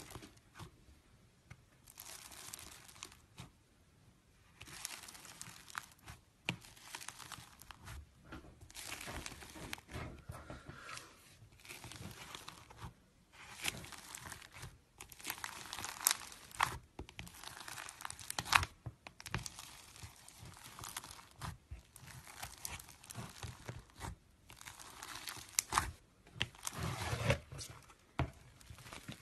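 Floam, slime full of small foam beads, squeezed and kneaded by hand, crackling and crinkling in repeated bursts of a second or two with sharp little pops and clicks between short pauses.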